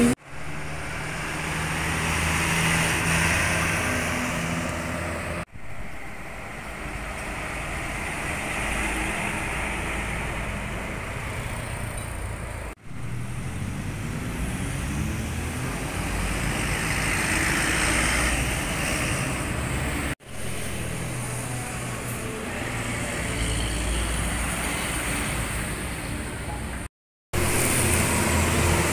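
Large diesel intercity coaches driving past one after another, engines running with tyre and traffic noise, in several short clips joined by abrupt cuts.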